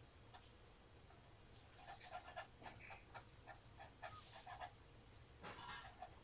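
Pencil with a soft B graphite lead scratching faintly across heavy Arches watercolour paper in short quick strokes, in clusters from about a second and a half in and again near the end.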